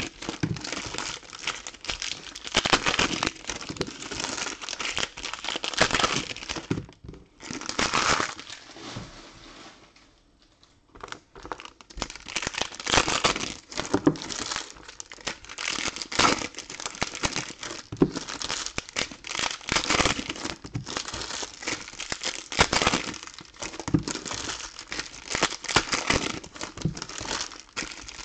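Foil trading-card pack wrappers crinkling and tearing as packs of soccer cards are ripped open and handled, with a brief pause about ten seconds in.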